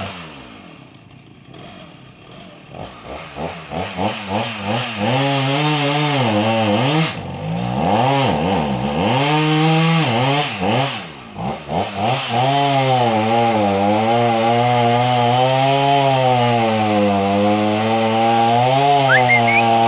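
Gas chainsaw dropping to idle, then revved up and down several times before running at steady full throttle for the last several seconds, its pitch wavering slightly under load as it cuts wood.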